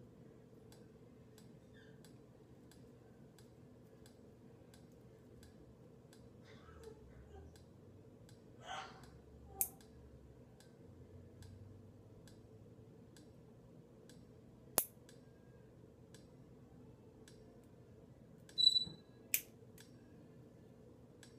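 Small nail trimmers snipping off the excess of a nail wrap at the fingertip: a few sharp, widely spaced clicks and snips, the loudest near the end with a brief metallic ping. Between them it is quiet, with a faint regular ticking.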